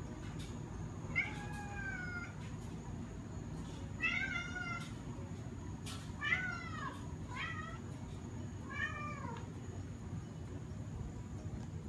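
Domestic cat meowing five times, each meow short and arching up and down in pitch, over a steady low background hum.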